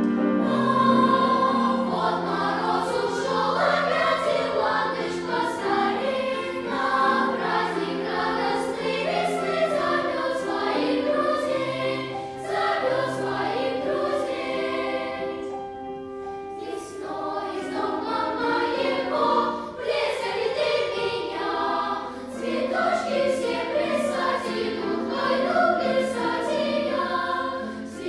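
Children's choir singing with piano accompaniment, with a short break in the voices about halfway through.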